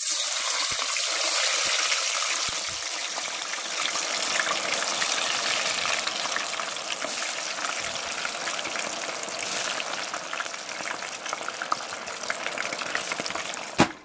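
Potato wedges frying in hot canola oil in a Presto FryDaddy deep fryer: a lot of noise, a dense steady sizzling and bubbling as the moisture on the wedges boils off. It is loudest at first, eases slightly, and cuts off abruptly near the end.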